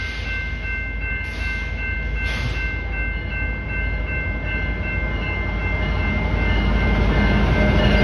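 Canadian Pacific diesel freight locomotive approaching, its low rumble growing steadily louder as it nears. A few steady high-pitched tones sound over it and fade out near the end.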